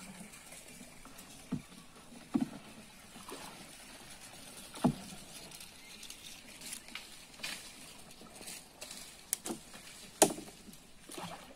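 Wooden canoe being paddled through flooded brush: irregular knocks of the paddle against the hull and branches, with small splashes of water. The loudest knock comes about ten seconds in.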